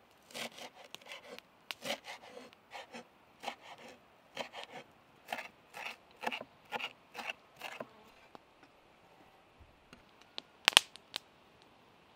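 Chef's knife chopping fresh herbs on a wooden cutting board: quick runs of crisp knife strokes for about eight seconds, then they stop. Near the end comes a single sharp knock, the loudest sound.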